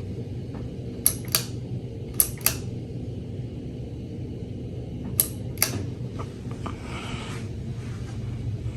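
Hunter Low Profile III ceiling fan motor running with a steady electrical hum. Three sharp double clicks, at about 1, 2 and 5 seconds in, come from its pullchain speed switch. The fan has a bad speed capacitor and an incorrect pullchain switch fitted (an A01 instead of an A09).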